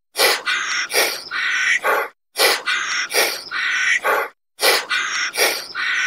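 A chirping animal call, repeated three times in identical phrases about two seconds long, each made of several quick sharp chirps with short silent gaps between phrases.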